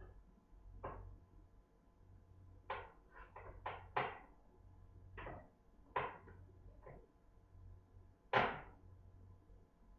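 Irregular clunks and knocks of hard parts being handled, about a dozen, loudest about eight seconds in, over a faint steady low hum.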